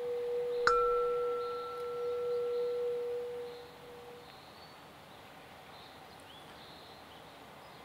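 Bell tones ringing out: a steady low tone dies away over about four seconds, and about a second in a sharp strike adds a higher ringing tone that fades within a couple of seconds. After that only a faint background remains.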